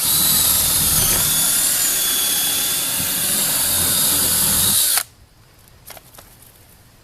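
Cordless drill running steadily at speed, boring a bolt hole into the wooden door frame, then stopping abruptly about five seconds in; a few faint clicks follow.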